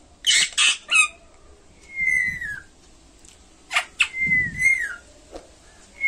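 Baby parrot chick squawking: three loud harsh squawks in quick succession at the start, then a few shorter calls that fall slightly in pitch, one about two seconds in and a couple more around four seconds in.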